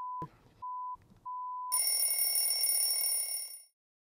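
A 1 kHz censor beep bleeps out speech in three bleeps, with muffled words between them, the last ending a little under two seconds in. Then an electric bell rings loudly for about two seconds, with fast, rattling strikes, and cuts off.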